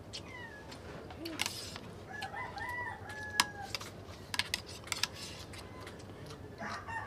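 A rooster crowing in the background, one long call about two and a half seconds in and another starting near the end, over light clinks of spoons and forks on plates.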